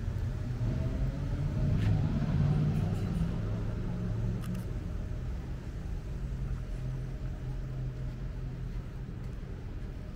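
A car passing on a city street: its engine and tyres swell to a peak about two seconds in and then fade, over a steady low hum.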